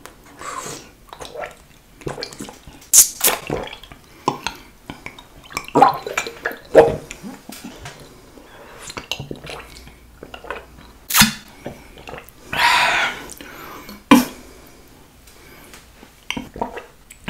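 Close-miked drinking from a glass flask: irregular sips, slurps and swallows of liquid, with sharp clicks of the glass at the lips.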